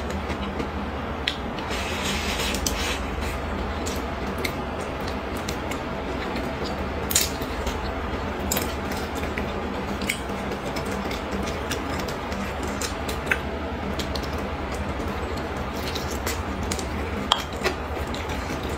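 Close-miked eating: chewing of braised pork and vegetables with wet mouth sounds, and scattered sharp clicks of wooden chopsticks against the bowl. A steady low hum and hiss lie underneath.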